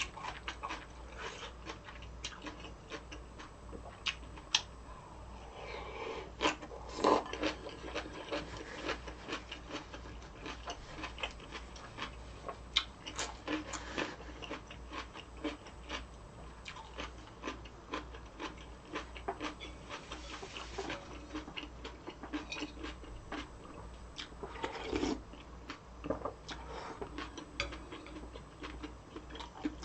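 Close-miked chewing and biting of fishcake udon and kimchi: a stream of small wet clicks, with a few louder bites.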